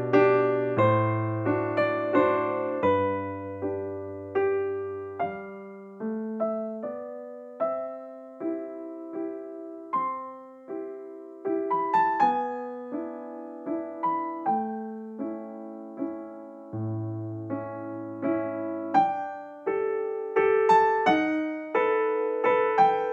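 Background piano music: single notes of a slow melody struck one after another and fading, over held bass notes.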